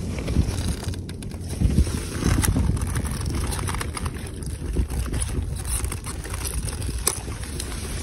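Leaves of sea kale plants rustling and brushing as a gloved hand pushes in among them to pick the shoots, with a few sharp snaps, over a steady low rumble of wind on the microphone.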